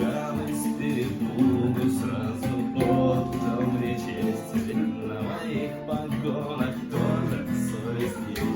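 Acoustic guitar strumming chords in a steady rhythm, an instrumental break between sung verses of a chanson song.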